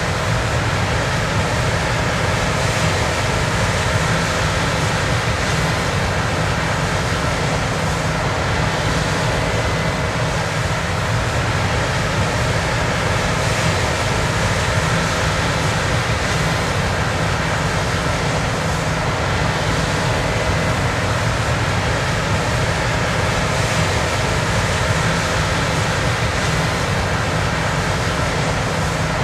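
John Deere X9 combine running steadily while harvesting soybeans: a loud, even machine noise with a faint constant hum that does not change.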